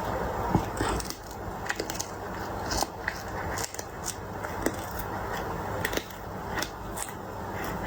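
Cat chewing crunchy food: a quick, irregular run of crisp crunches and clicks over a steady background hiss.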